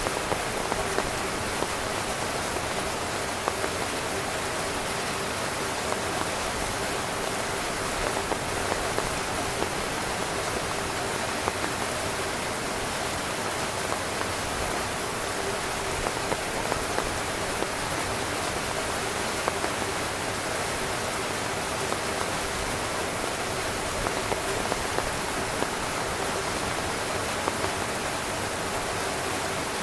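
Heavy rain falling steadily on a tent's fabric: a constant hiss with frequent scattered louder drop hits.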